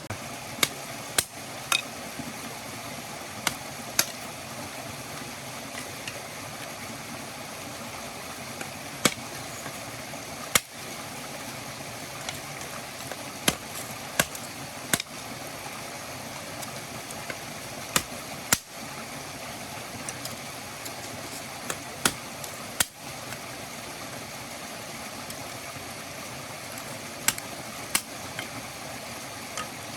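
Steady rushing of a flowing stream, with sharp, irregularly spaced pops and clicks over it.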